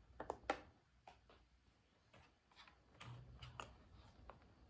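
Faint handling clicks and taps of multimeter test probes being touched to an AA battery: two sharper clicks about half a second in, then scattered light ticks.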